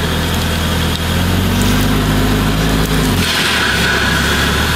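Mercedes car's engine running at low revs and pulling as the front tyre climbs onto a plastic soda bottle, its pitch rising a little before dropping away about three seconds in, when a higher steady whine and hiss takes over. The bottle does not burst: no pop.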